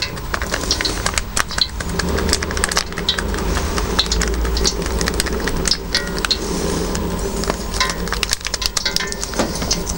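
Paprika spice sachet crinkling and being tapped as the powder is shaken out of it: a quick, irregular run of small clicks and rustles over a low steady rumble.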